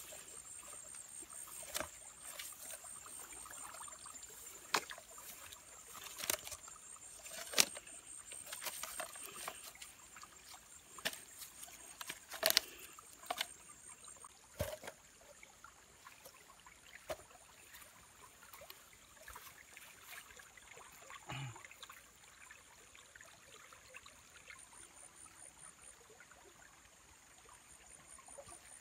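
Woven bamboo fish trap being handled: scattered clicks, knocks and rustles of the bamboo slats, mostly in the first half, over a faint steady trickle of water.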